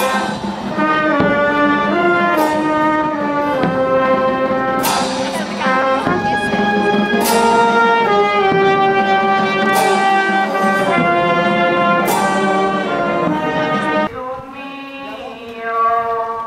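Brass band playing a slow march in sustained chords, with a crash on the beat about every two and a half seconds. The music turns much quieter about two seconds before the end.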